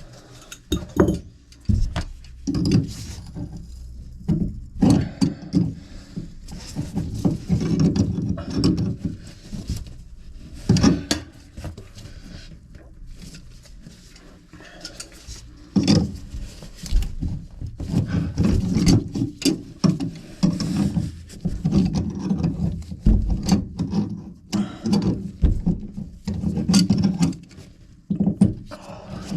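Irregular knocks, scrapes and clatter of hands and tools handling plumbing at close range, with dull thuds now and then.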